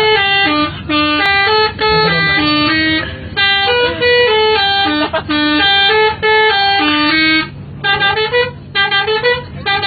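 Bus 'telolet' horn, a multi-tone musical air horn, playing a stepping melody in repeated phrases, with short breaks about three, five and seven and a half seconds in.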